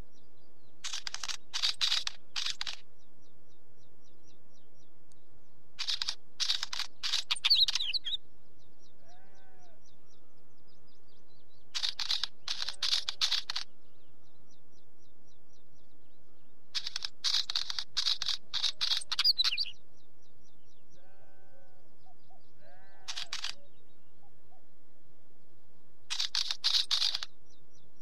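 Northern wheatear singing: six short phrases of rapid crackling, clicking notes, each a second or two long and a few seconds apart, with fainter, softer single notes in the gaps.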